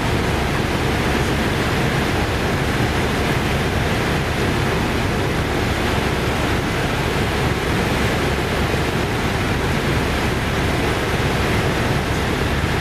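Helicopter cabin noise in flight: the steady, loud drone of the rotor and turbine engine heard from inside the cabin.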